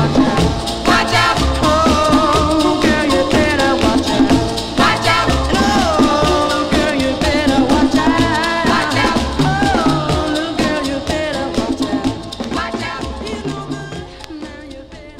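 An old popcorn-style oldies record playing, with a beat and a wavering melody line, fading out over the last few seconds as the track ends.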